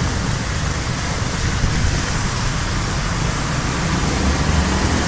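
Steady rain falling, a constant hiss with a low rumble underneath.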